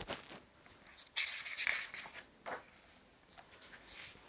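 Paper rustling and soft handling noises of a picture book being opened and its pages turned: a few short rustles, the longest about a second in, with light clicks.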